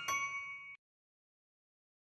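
The last bell-like notes of a children's song backing track ring on and fade out within the first second, followed by dead silence.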